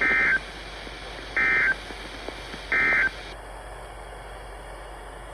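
NOAA Weather Radio SAME digital data bursts: three short, buzzy warbling chirps, each about a third of a second long and a little over a second apart. This is the end-of-message code that closes the weekly test broadcast.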